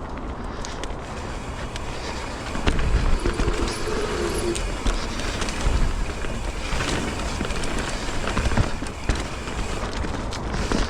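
Mountain bike riding over a dirt trail: tyres rolling over dirt, roots and rocks, with the bike rattling and knocking. It gets louder and bumpier about three seconds in.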